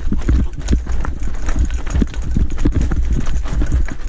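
Gravel bike clattering over a rocky dirt trail: irregular knocks and rattles as the tyres strike loose stones and the bike jolts, over a steady low rumble.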